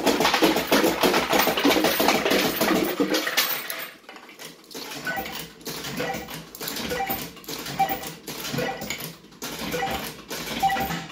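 Coins clattering out of a Bell-Fruit Cash Explosion fruit machine into its metal payout tray: a dense rattle for about the first three seconds, then single coins dropping about every half second with short electronic blips.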